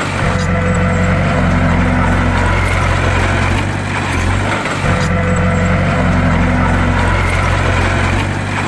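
Bulldozer's diesel engine running steadily with a deep rumble, the same pattern coming round about every four and a half seconds.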